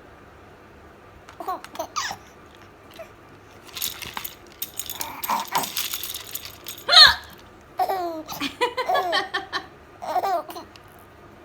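Young child laughing in several bursts with some babbling, the loudest a sharp rising squeal of a laugh about seven seconds in.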